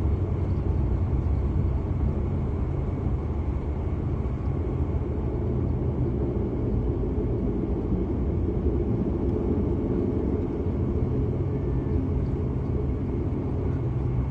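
Airliner cabin noise as the plane rolls along the runway after landing: a steady low rumble of engines and wheels, heard from inside the cabin.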